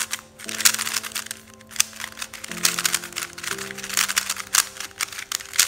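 Rapid clicking and clacking of a MoYu RS3M 2021 Maglev speedcube's plastic layers being turned quickly by hand; the cube is new and unlubricated. Background music with slow held chords plays underneath.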